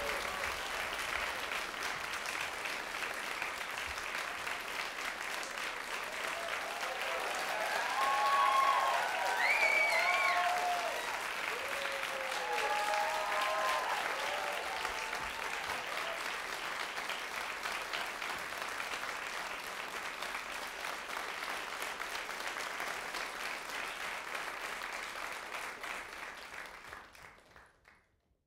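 Theatre audience applauding steadily, with a few shouted cheers rising above the clapping partway through. The applause fades away near the end.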